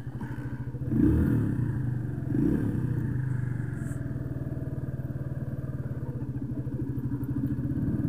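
125cc motorcycle engine running steadily at low revs while being ridden, with two brief louder swells about one and two and a half seconds in.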